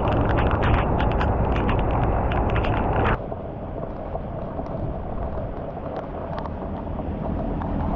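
Heavy rain falling on shallow floodwater and pavement, a dense hiss full of raindrop ticks. About three seconds in it cuts abruptly to a quieter stretch of rain, with water sloshing around rubber boots wading through the flood.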